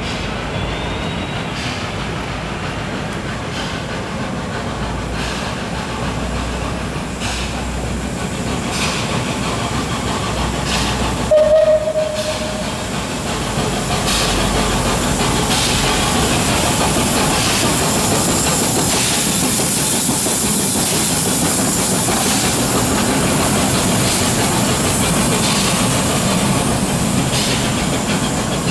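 Steam tram running along street track, with steam hiss and wheel noise that grow louder about halfway through as it comes close. One short whistle note sounds about a third of the way in.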